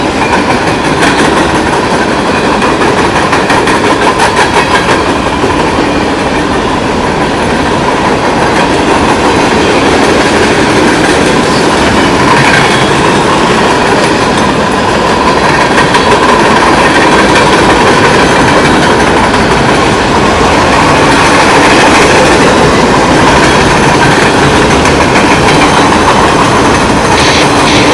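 Freight cars rolling past close by: a loud, steady rumble of steel wheels on rail, with clickety-clack over the rail joints clearest in the first few seconds and a thin steady squeal from the wheels running through much of it.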